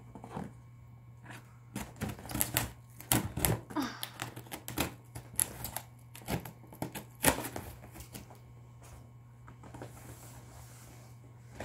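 A knife blade cutting through packing tape and cardboard along the seam of a large box, giving irregular sharp clicks and scrapes, with cardboard flaps rustling as the box is handled.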